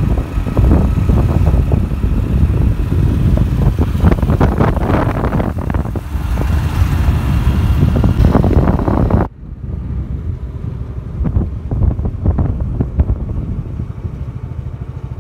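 Motor vehicle on the move, engine running under wind buffeting the microphone; about nine seconds in the wind noise drops off suddenly, leaving a duller, steady engine sound.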